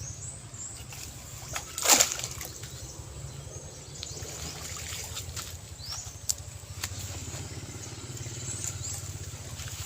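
Outdoor waterside ambience: water sloshing and trickling under a steady low rumble, with a few short high bird chirps and one brief loud burst of noise about two seconds in.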